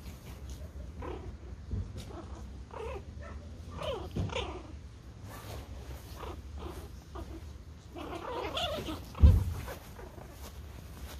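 Pomeranian puppies play-fighting, making short, wavering little growls and yips, busiest around four seconds in and again around eight to nine seconds in. A sharp thump about nine seconds in is the loudest sound.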